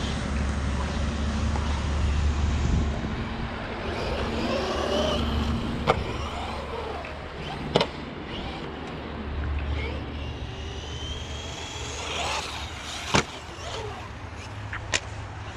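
Brushless electric motor of a 1/12-scale 4x4 RC car whining as it revs up and down under throttle. There are a few sharp knocks, four in all, as the car is driven.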